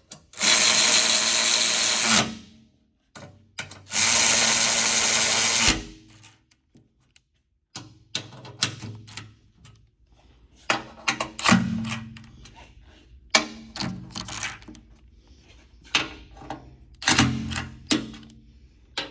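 Power driver running skid plate bolts (12 mm) in, two steady runs of about two seconds each, followed by a string of short irregular clicks and knocks of the tools and bolts being handled.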